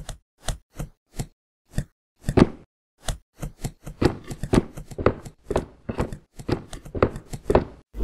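A run of short, sharp knocks. They are sparse and irregular for the first three seconds, then come faster, about four a second.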